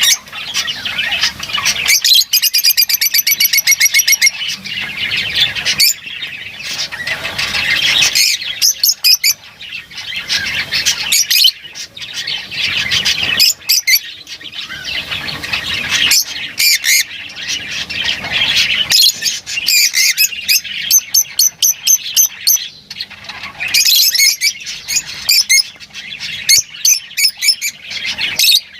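Lovebirds chattering continuously with shrill chirps and squawks, broken by quick runs of rapidly repeated notes.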